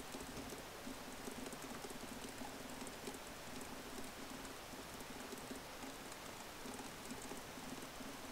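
Faint typing on a computer keyboard: scattered light key clicks over a steady hiss, with a low hum that breaks in and out.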